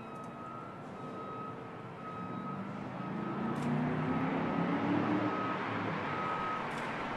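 Chevrolet Camaro Z28's V8 engine pulling hard, its pitch climbing about three seconds in and easing off after five, with wind and road noise building. A short high beep repeats a little under once a second.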